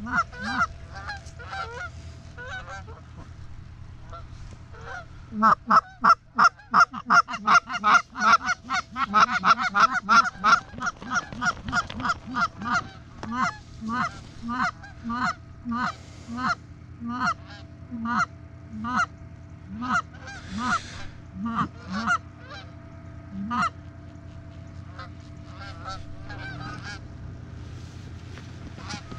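Canada geese honking and clucking in quick runs, loudest and fastest from about five to eleven seconds in, then slower single honks that die away well before the end.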